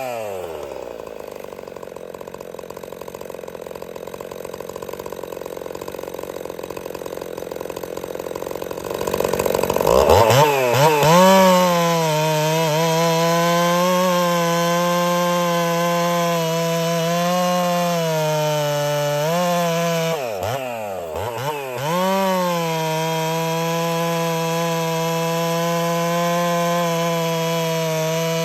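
Ported Husqvarna 61 two-stroke chainsaw dropping off throttle to a low idle, then about ten seconds in revving up fast and running at steady high revs, cutting wood with a 24-inch bar. About two-thirds of the way through, the revs dip twice and recover.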